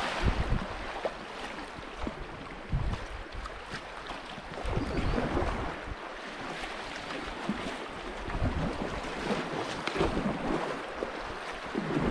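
Fast river current rushing and splashing around a packraft, with paddle strokes in the water. Irregular low rumbles of wind buffet the microphone.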